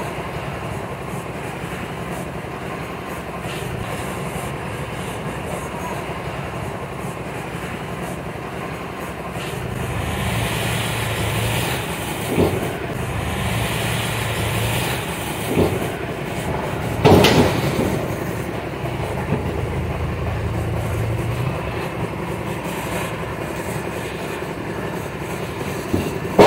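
Tipper truck engine running steadily while its raised dump body tips M sand out past the open tailgate; the engine note rises and grows louder partway through, with a few sharp knocks in the second half.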